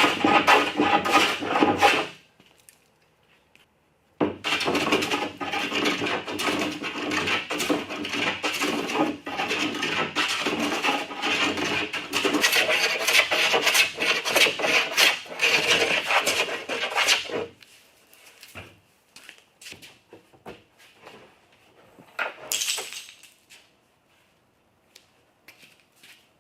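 Rapid rubbing and scraping of a hand tool working wood, in two long spells with a pause between, then a few light clicks and knocks.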